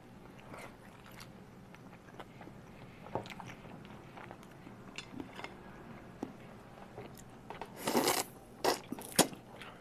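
People chewing and biting into pan-fried pork buns (shuijianbao), with small wet clicks of mouth and chopsticks. Near the end comes a short, louder burst of noise, then two sharp clicks.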